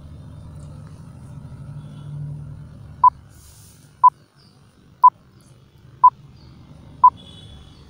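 Countdown timer beeps: five short, identical electronic beeps exactly one second apart, starting about three seconds in, over a faint low hum. They count down the time to answer a quiz question.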